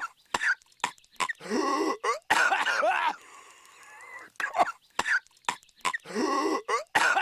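Patrick Star, the cartoon starfish, in a coughing fit: short, sharp coughs mixed with longer, voiced hacking coughs that bend in pitch. The same run of coughs comes round again partway through, as in a loop.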